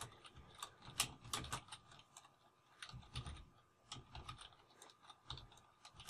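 Typing on a computer keyboard: faint, irregular keystrokes in short runs.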